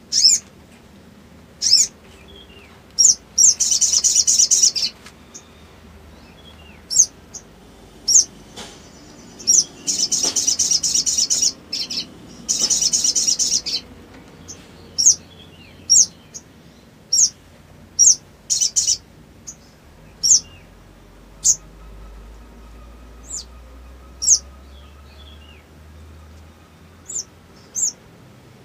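Male olive-backed sunbird calling: short, sharp, high chirps every second or so, broken by three rapid trills of one to two seconds each, about four seconds in and twice between ten and fourteen seconds in.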